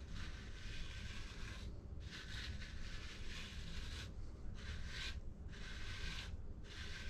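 Wild Willie's heated beard straightener brush dragged through beard hair: about five soft, scratchy brushing strokes, each one to two seconds long with short pauses between them.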